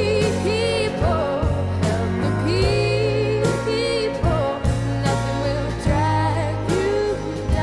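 A song: a singer holding wavering notes over steady bass notes and drum hits.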